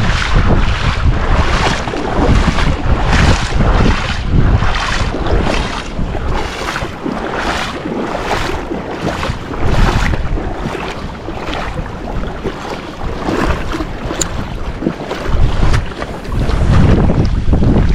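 Strong wind buffeting the microphone over surf, with a regular swishing sound about twice a second that fades out a few seconds before the end.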